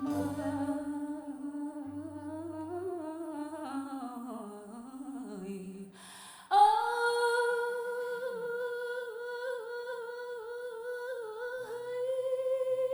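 A solo singing voice drawn out without words: a wavering, ornamented line that sinks in pitch over about six seconds, a brief breath-like hiss, then one long held high note with a slight vibrato.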